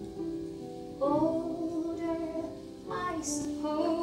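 A woman singing long held notes with vibrato over instrumental accompaniment, a new phrase beginning about a second in and another near the end.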